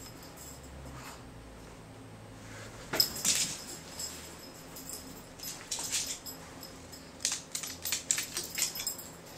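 Pug puppy playing on a hardwood floor: a sharp burst of clicking and scrabbling about three seconds in, then more quick clicks and scuffles of its claws on the wood through the second half.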